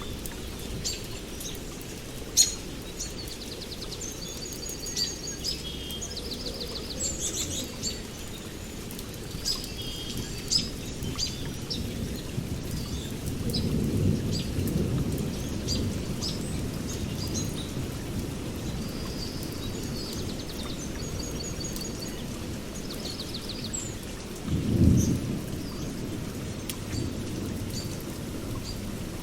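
Songbirds chirping and trilling over a steady background hiss of rain, with scattered drip-like ticks. A low rumble of distant thunder rolls for a few seconds around halfway, and a shorter, louder rumble comes near the end.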